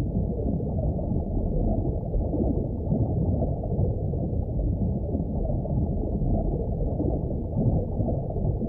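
Creek water rushing and gurgling, heard through a camera held under water: a steady, muffled low rumble.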